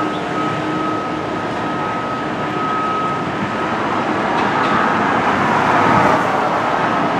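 Steady vehicle or machinery rumble with a thin, steady high tone that fades out partway through, while the rumble swells louder about four to six seconds in.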